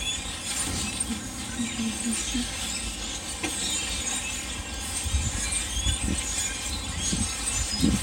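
A large flock of birds calling noisily in the trees, many short high chirps and squeals overlapping without a break, over wind rumbling on the microphone.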